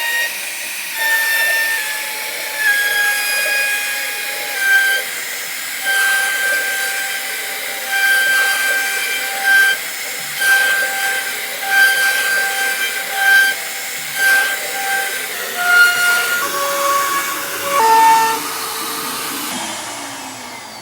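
CNC wood router working: a high whine that shifts pitch in steps as the machine moves, over a hissing cutting noise, swelling louder about every second and a half.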